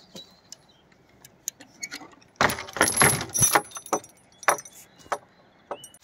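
Metal gate chain clinking and rattling as a hand unhooks it from a wooden field gate. It jangles loudest in a burst of about a second, starting about two and a half seconds in, followed by a few single clinks.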